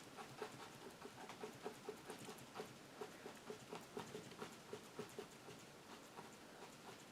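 Bristle brush tapping acrylic paint onto a canvas, a quick run of soft, light taps at about three to four a second, stippling in foliage.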